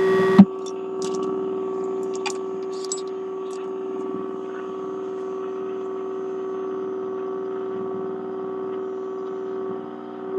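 RCA M-45 vacuum-tube radio playing through its speaker while tuned, giving a steady pitched hum-like tone with a few faint static crackles, after a sharp click about half a second in. The reception is a little noisy.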